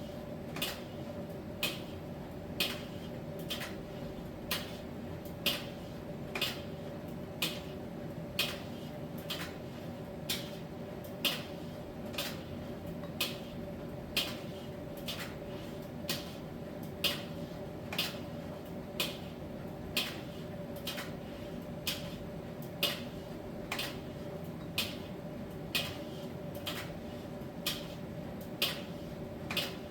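Miele T1 heat-pump tumble dryer running mid-cycle: a steady hum with a light click about once a second as the drum turns.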